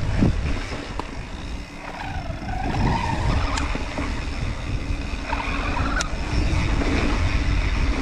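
Riding noise from a mountain bike on a dirt trail: heavy wind rumble on the microphone and tyre noise, with the Bimotal Elevate rear-wheel motor's whir rising in pitch about two seconds in and again around five seconds in. Two sharp ticks stand out, one in the middle and one about six seconds in.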